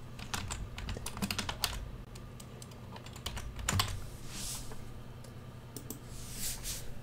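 Computer keyboard typing: a quick run of keystrokes through the first two seconds, a louder click near four seconds, then a few scattered clicks.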